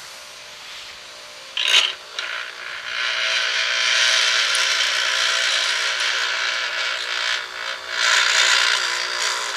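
Pedestal grinder's abrasive wheel grinding a high-speed steel lathe threading tool. There is a short touch of the tool on the wheel about a second and a half in, then steady grinding hiss from about three seconds, easing briefly near the end, over the hum of the running grinder.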